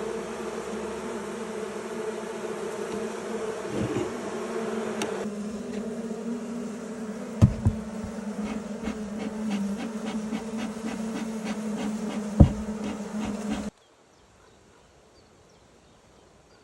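Many honeybees buzzing in a steady hum, with a few sharp knocks about halfway through and near the end. The hum cuts off abruptly near the end, leaving only faint background sound.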